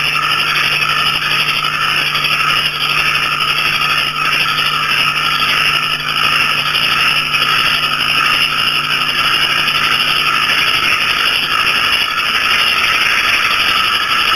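Loud, dense night chorus of small frogs, banded bullfrogs and crickets calling together: a steady mass of rapid trills and chirps without a break. A low steady hum underneath stops about eleven seconds in.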